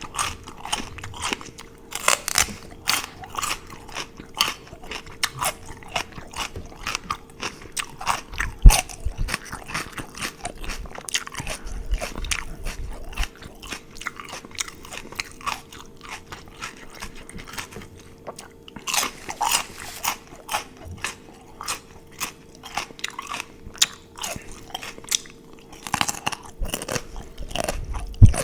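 Close-miked crunching and chewing of raw celery sticks: a few sharp, loud bites with crisp, wet crunching chews between them.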